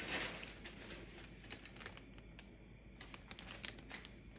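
Clear plastic bag of raw peanuts crinkling and rustling as it is handled over a soup pot: an irregular run of small crackles, a little louder at the start.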